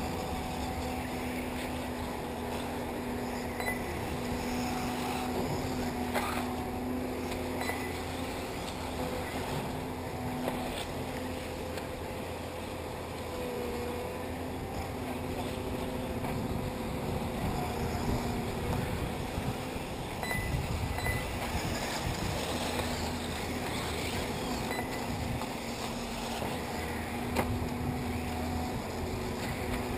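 1/8-scale electric radio-controlled buggies running around a dirt off-road track, heard as a steady mechanical hum that shifts slightly in pitch as they go.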